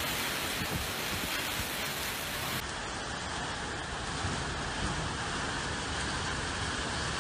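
Heavy monsoon rain pouring down in a steady rush. About two and a half seconds in it changes abruptly to a duller rush of rain.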